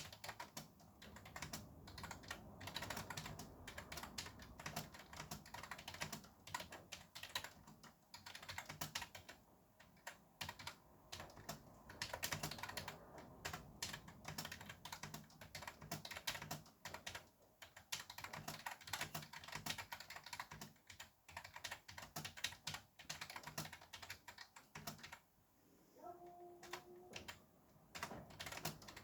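Fast, continuous typing on a computer keyboard: a dense stream of key clicks over a faint traffic hiss. Near the end the typing pauses for a couple of seconds, and a brief steady tone sounds.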